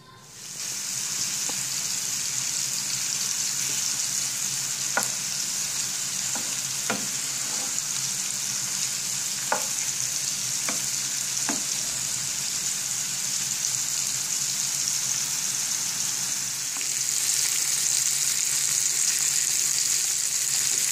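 Sliced mushrooms and chicken pieces frying in butter in a nonstick pan: a steady sizzle that grows louder near the end, with a few light knocks of stirring in the middle.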